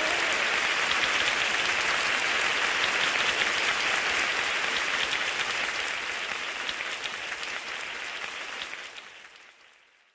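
Applause: a steady patter of many hands clapping that fades out over the last few seconds to silence.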